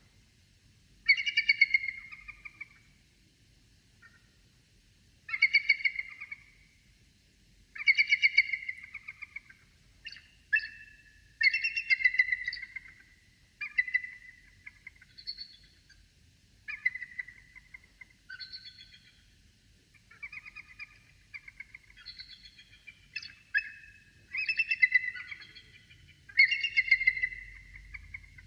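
A bird calling over and over: more than a dozen short calls of rapid, chattering pulses, roughly one every two seconds.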